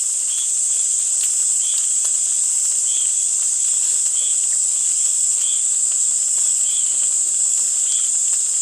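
A dense chorus of insects, a steady high shrill without a break, with a separate short chirp repeating about once a second.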